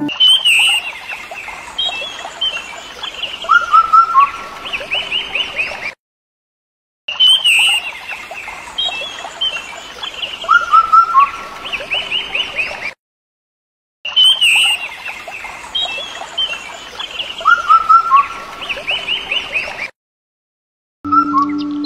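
Birds calling and chirping, with quick runs of chirps. The same six-second stretch plays three times, each cut off by about a second of dead silence.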